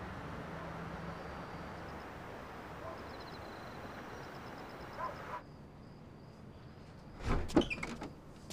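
Night-time ambience: an even hiss of distant town noise with faint, quick insect-like chirps, which gives way at about five seconds to quieter room tone with a faint steady high whine. A brief louder sound comes about seven seconds in.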